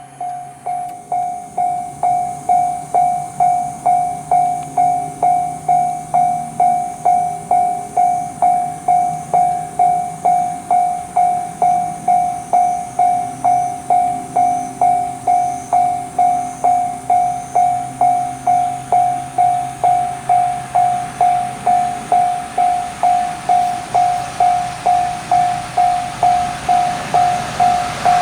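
Japanese railway level-crossing warning bell ringing in an even rhythm, about two clangs a second. Near the end the noise of an approaching train begins to rise under it.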